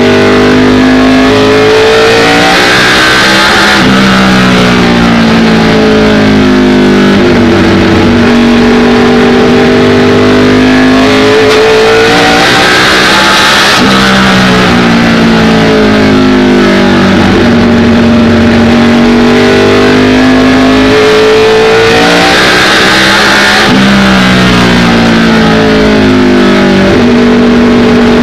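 ARCA stock car's V8 engine heard loud from inside the cockpit at racing speed, climbing in pitch down each straightaway and dropping off sharply as the driver lifts for the turns, three times about ten seconds apart.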